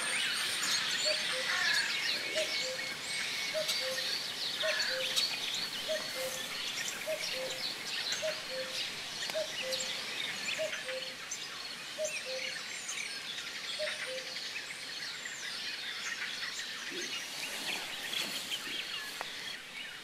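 Common starling singing: a dense, busy run of whistles, clicks and chattering notes. Behind it, a low two-note call repeats about once a second until about two-thirds of the way through.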